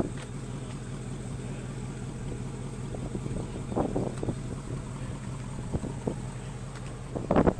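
Ford Mustang GT's 5.0 V8 idling steadily through its quad exhaust tips. A louder rushing noise starts just before the end.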